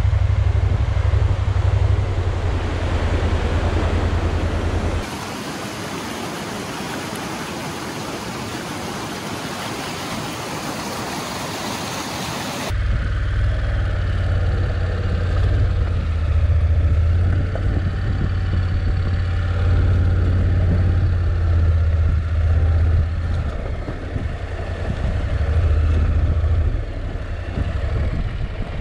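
Honda NC750X parallel-twin motorcycle engine running at low road speed, a deep steady rumble with wind rush on the camera's microphone. About five seconds in the engine sound cuts out, leaving a steady rushing hiss for several seconds. The rumble then cuts back in and carries on to the end.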